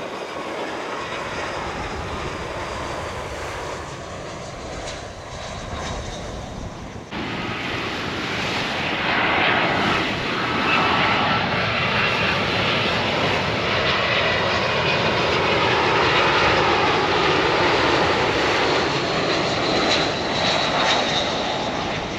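Airbus A320-232's IAE V2500 jet engines on the landing run, a steady jet rumble and whine that grows louder about seven seconds in and stays loud, with gliding whine tones as the aircraft passes.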